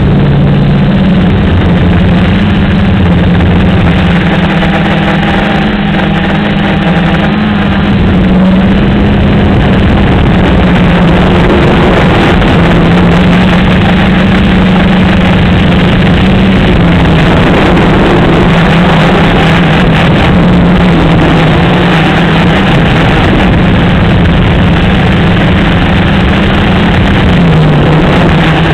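Gaui 330XS quadcopter's electric motors and propellers buzzing in flight, heard close up through the onboard camera. Its hum wavers in pitch as the motor speeds shift, dipping and rising again near the end, over a steady rushing noise.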